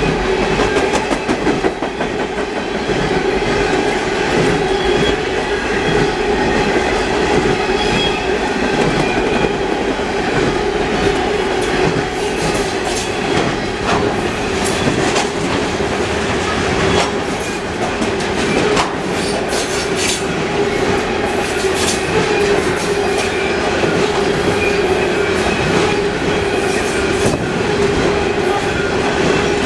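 Freight cars of a long mixed freight train rolling past: a steady rolling noise with a constant ringing tone and scattered clicks from the wheels on the rail.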